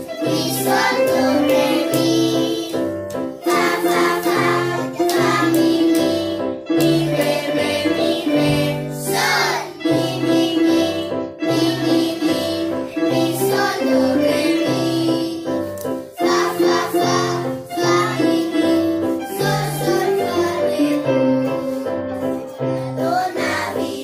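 A group of children singing along with several electronic keyboards that they are playing themselves, over a low keyboard bass line that repeats note by note.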